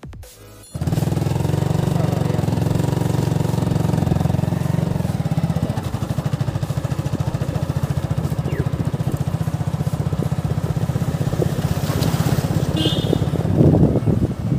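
Motorcycle engine running steadily as it rides along, heard from on the bike, its note easing a little about halfway through. A short music sting ends just before it starts.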